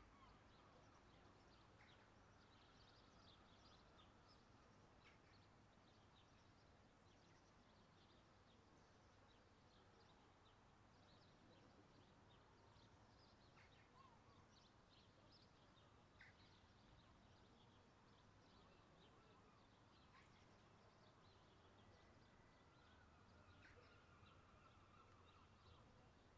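Near silence: faint outdoor ambience with small birds chirping here and there and a low steady hum underneath.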